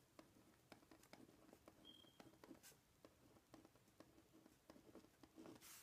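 Faint scratching of a Uni-ball Signo gel pen writing words on grid paper: a quick string of small pen strokes.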